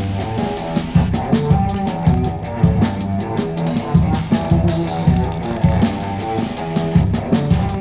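Rock music with a steady drum-kit beat, bass and guitar.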